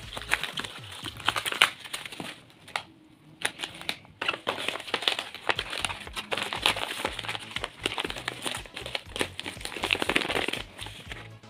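Paper and tape-covered paper crinkling and rustling as a handmade paper box is handled: pieces pushed into it, the lid closed and pressed down, the box turned over. There is a brief lull about three seconds in.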